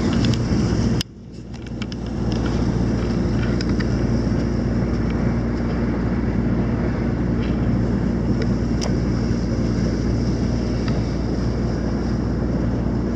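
Boat engine running steadily, a constant low drone with a few steady tones, heard on board. The sound drops out briefly about a second in, then fades back up.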